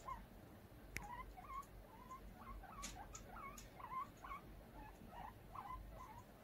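Guinea pig giving a run of short, low squeaks, about three a second, with a couple of sharp clicks between them.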